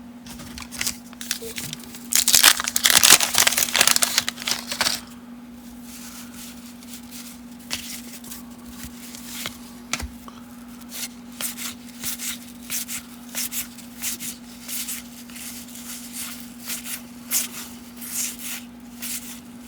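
A wax-paper card pack wrapper being torn open and crinkled for about three seconds. Then a long run of quick, light flicks as baseball cards are thumbed through one at a time, over a steady low hum.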